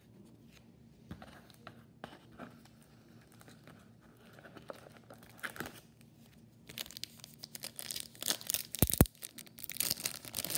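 Faint taps and shuffling of chromium baseball cards being laid down, then from about seven seconds in the foil wrapper of a Topps Chrome pack crinkling and tearing open, with a few sharp crackles.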